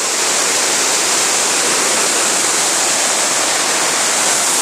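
Waterfall rushing steadily, a loud, even roar of falling water with no breaks.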